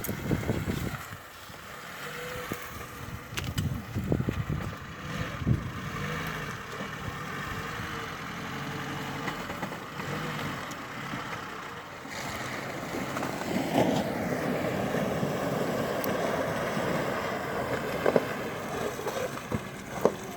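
Off-road 4x4 engine running and revving in mud, its pitch rising and falling, with a few knocks.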